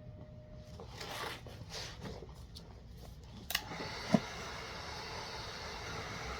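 Soft swishing of vinyl wrap being rubbed and worked onto a car bumper, then a click and a sharp knock a little over halfway through, after which a steady fan-like hiss runs on.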